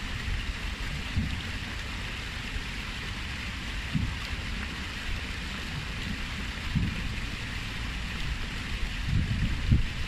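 Water splashing down a stepped stone cascade into a pool: a steady rushing patter. Occasional low rumbles rise briefly under it, around four seconds in, near seven seconds and just before the end.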